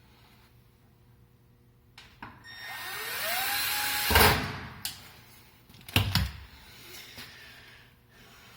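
Power drill running up with a rising whine for about two seconds, then stopping abruptly, followed by a sharp knock and a few clicks.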